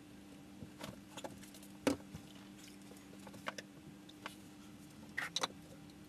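Scattered small knocks, clicks and rustles of brewing gear being handled, the loudest knock about two seconds in and a quick cluster near the end, over a steady low hum.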